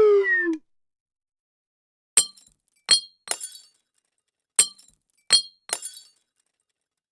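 Added sound effects: a falling whistle-like tone ends about half a second in, then six sharp glass clinks in two groups of three, each ringing briefly.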